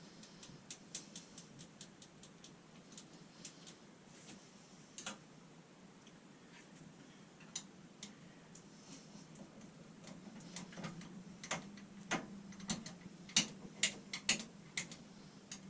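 Light metallic clicks and taps, irregular, as a steel lock collar is worked forward along a lathe spindle. They are sparse at first and come faster and louder in the last few seconds, over a faint steady hum.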